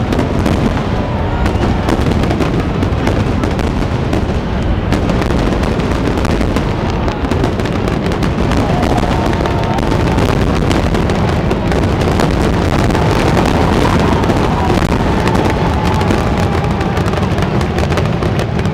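Fireworks finale: a dense, unbroken barrage of aerial shell bursts and crackle, loud throughout.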